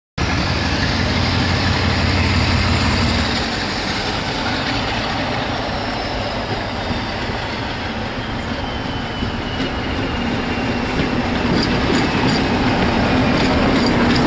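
Class 47 diesel-electric locomotive passing close with a train of coaches, its engine running under power, with a faint high whine slowly falling in pitch. It grows louder toward the end as the locomotive draws level, with wheels ticking over the rails.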